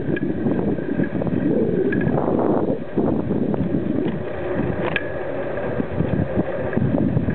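Wind buffeting the microphone of a camera mounted on a moving bicycle, a continuous rough rumble mixed with tyre and road noise, with a few light clicks and rattles from the bike and camera mount.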